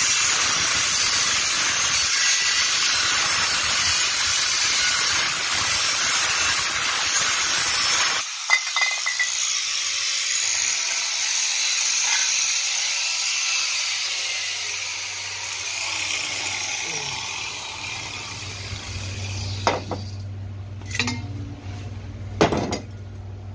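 Angle grinder with an abrasive cutting disc slicing through the thin steel of an empty refrigerant cylinder, a loud, steady grinding noise. The cutting stops abruptly about eight seconds in and a faint falling whine follows. Near the end come a few sharp metal clinks.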